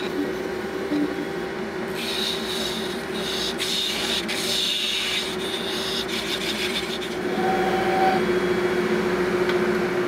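Lathe running with a steady motor hum while a turning tool scrapes and cuts a spinning cast-resin shift knob, shaving off curls of resin. The scraping rasp of the cut comes in about two seconds in and fades out around seven seconds in, while the hum carries on.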